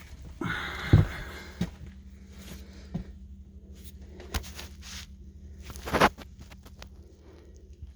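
Scattered knocks, clicks and rustles, with a heavy thump about a second in and another about six seconds in, over a faint steady low hum.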